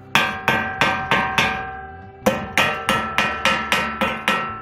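A welder's chipping hammer striking fresh weld beads on rectangular steel profile tube to knock off the slag, each blow making the tube ring. The blows come in two quick runs, about three a second, with a short pause about two seconds in.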